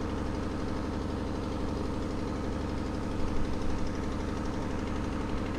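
Boat motor running steadily at low speed: an even, low, pulsing hum as the boat eases along, briefly a little louder about three seconds in.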